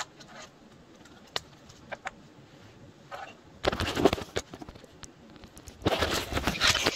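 Things being picked up and moved about on a wooden tabletop: a few light clicks and knocks, then two stretches of louder close rustling and scraping, about four seconds in and again near the end.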